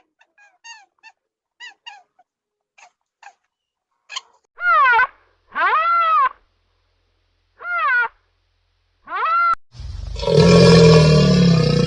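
Animal calls: a run of short, high falling chirps, then four loud rising-and-falling calls spaced about a second apart. A loud, rough roar-like call starts near the end.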